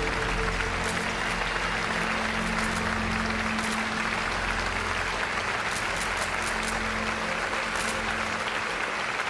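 Audience applauding steadily, with sustained low music notes beneath that fade out near the end.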